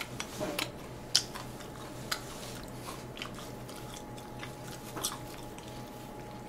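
Close-miked chewing of sauced sweet and sour pork (tangsuyuk), heard as scattered soft wet mouth clicks, the strongest about a second in and again near the five-second mark, over a faint steady hum.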